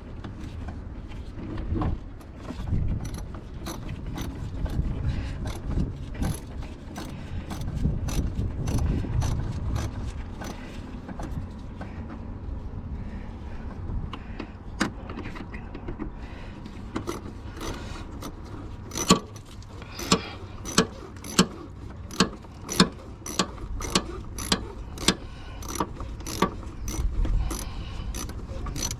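Hand ratchet wrench with a socket extension clicking as it is worked back and forth on a bolt. The clicks are sparse at first, then come sharper and more regular in the second half, about one to two loud ones a second.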